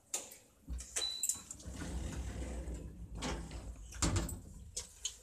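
Lift's sliding doors moving, with several sharp knocks and clunks and a low rumble between them.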